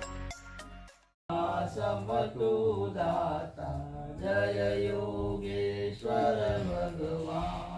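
A voice chanting a Hindu puja mantra in a sung, drawn-out tone, after a second of beat-driven music that cuts off abruptly.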